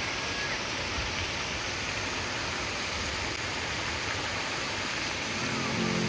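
Pond fountains spraying, a steady rushing splash of water jets falling back onto the pond surface.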